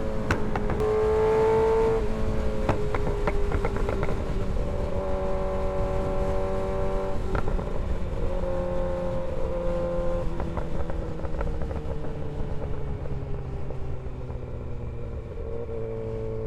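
Kawasaki ZX-6R 636's inline-four engine under way, its pitch climbing and dropping several times as it is worked through the gears, then falling slowly through the second half as the bike slows. A low wind rush runs underneath.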